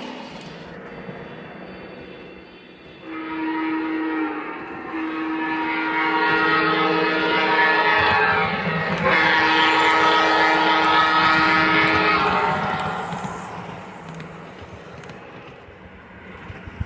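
Union Pacific M-10000 model train's horn sounding three times, a shorter blast and then two long ones, over the train's running noise.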